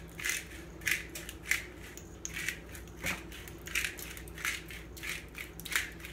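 Hand-twisted salt and pepper grinder grinding over the vegetables: a run of short crunching strokes, about one or two a second, one for each twist.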